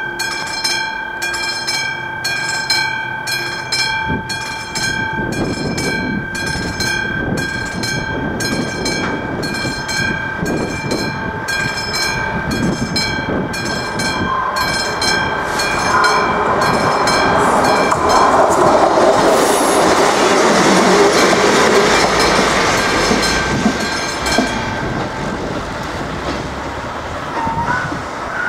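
A level-crossing warning bell rings in rapid, regular strokes. A passenger train comes up and runs over the crossing, its rumble and wheel noise growing to be loudest past the middle. Near the end the train noise eases and the bell has stopped.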